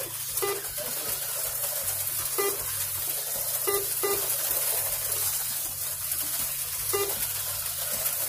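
HO-scale slot cars running laps, their tiny electric motors making a steady high whirring hiss, with several brief chirps scattered through it.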